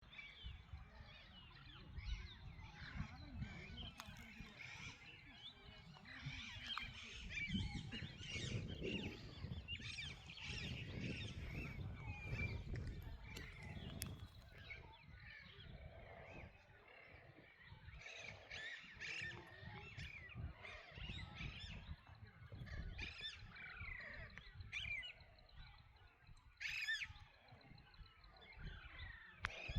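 A chorus of wild birds chirping and calling over one another, with a low rumble underneath that is strongest through the middle stretch.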